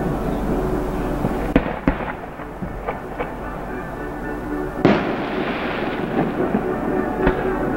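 Aerial fireworks shells going off in a show: several sharp bangs, the loudest about five seconds in.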